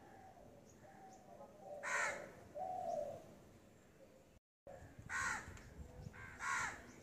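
Crow cawing: one harsh caw about two seconds in, followed shortly by a lower call, then two more caws near the end.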